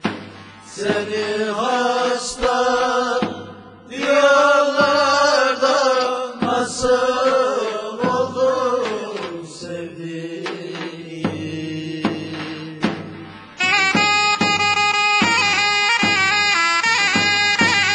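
Background music: a singing voice in long, wavering phrases over a steady drone. About thirteen and a half seconds in, a loud held chord with many overtones takes over, then cuts off suddenly.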